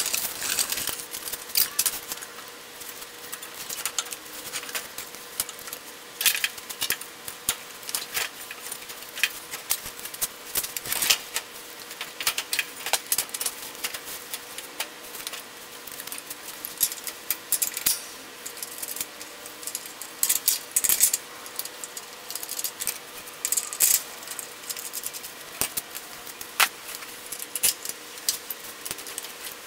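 Irregular metallic clinks, clicks and rattles from metal parts being handled at a riding mower's rear frame as its transaxle is worked into place, over a faint steady hum.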